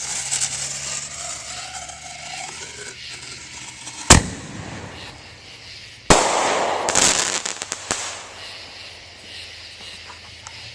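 Consumer fireworks mortar going off from its tube: the lit fuse hisses for a few seconds, then the shell launches with a loud bang about four seconds in and bursts with a second bang about two seconds later, followed by about two seconds of crackling.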